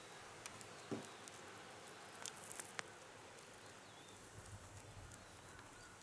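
Quiet outdoor ambience: a steady faint hiss with scattered light clicks, a soft knock about a second in and a few more clicks a little later, and a faint short high chirp near the middle.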